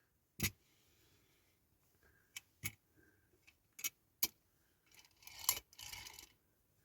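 Scattered sharp clicks and small metal taps from handling a diecast toy bus, about six separate clicks, then a brief rustling clatter near the end.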